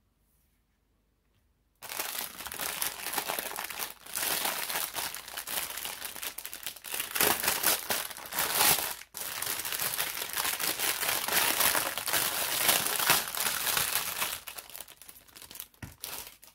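Clear plastic packaging crinkling as hands unwrap a silicone mold from it, starting about two seconds in, with a short break in the middle and dying away near the end.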